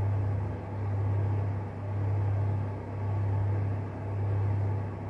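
Steady low electrical hum that swells and fades about once a second.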